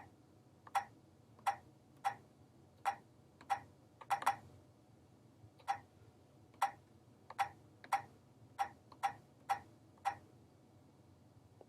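Touchscreen console of a Keyline electronic key cutting machine giving a short click with each key press as text is typed in. There are about fifteen presses, unevenly spaced, roughly one or two a second.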